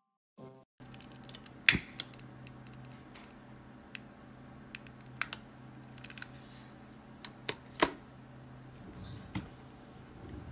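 Quiet room tone with a steady low hum, starting after a moment of silence, broken by scattered sharp clicks and taps; the loudest come about two seconds in and near eight seconds.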